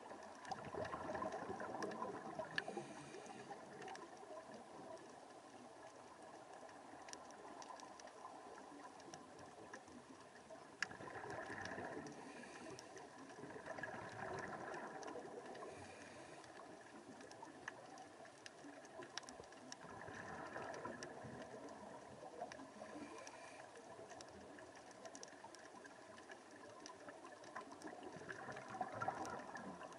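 Scuba diver's exhaled bubbles gurgling and bubbling up in swells every several seconds, heard underwater, with scattered sharp clicks in between.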